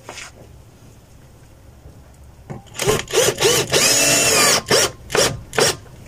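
Old wooden window frame with its glass pane creaking and squeaking as it is worked by hand: a run of squeals begins about halfway through and lasts some three seconds, with short breaks between them.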